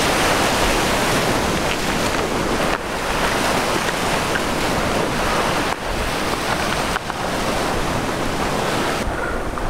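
Wind rushing over the microphone with ocean surf washing on a rock jetty: a loud, steady rush with a few brief dips.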